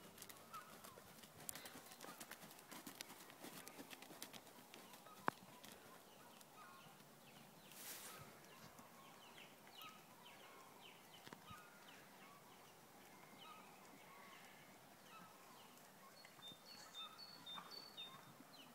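Faint hoofbeats of a ridden horse moving over a soft arena surface, with small birds chirping throughout.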